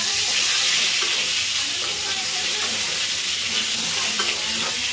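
Small whole potatoes frying in hot oil in a steel kadai, sizzling steadily from the moment the lid comes off, with a few light scrapes and taps of a spatula against the pan.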